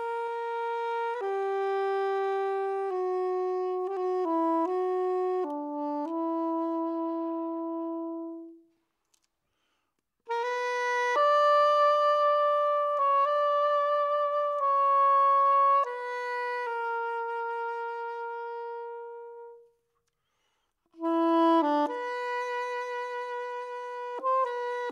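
A solo woodwind instrument plays a slow melody of long held notes, in three phrases with a brief silence about nine seconds in and another about twenty seconds in.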